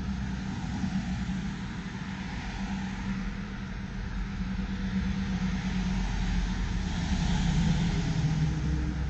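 Street traffic with a steady engine hum. A three-axle tipper truck passes close by, and the noise swells to its loudest about seven to eight seconds in.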